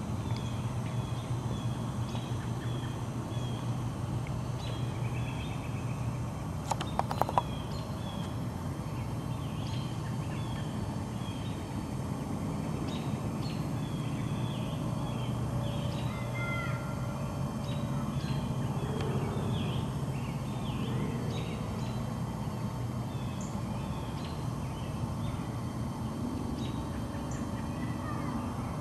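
Small birds chirping and calling over and over, over a steady low rumble, with a few sharp clicks about seven seconds in.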